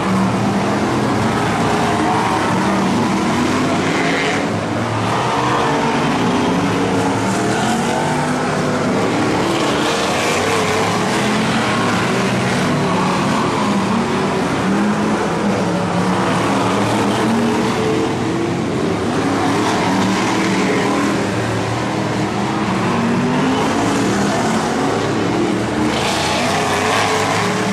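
A pack of BRISCA F1 stock cars' V8 engines racing, the engine notes rising and falling again and again as the cars accelerate out of and lift into the corners and pass by.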